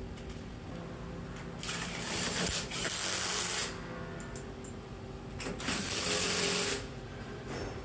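Makita LXT cordless impact driver hammering bolts down into T-nuts to clamp a fixture to a mill table, in two bursts: about two seconds, then just over a second. A steady low machine hum runs underneath.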